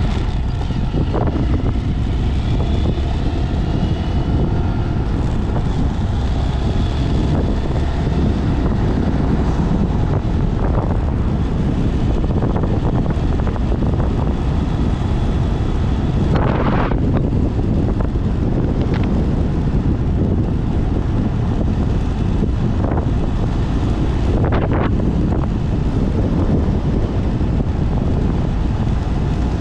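Wind buffeting the camera microphone while riding a Honda Z125 Monkey, its small air-cooled single-cylinder engine faintly audible under the wind, rising and falling in pitch near the start. A few brief louder gusts break through partway in.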